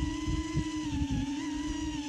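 FPV quadcopter's T-motor F60 Pro V motors spinning Gemfan 51466 tri-blade props, a steady whine whose pitch wavers with throttle, under irregular low buffeting thumps.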